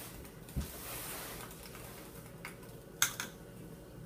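Hands rubbing together briefly, then a few light clinks of a wire whisk against a metal pot of egg whites and sugar, the loudest about three seconds in.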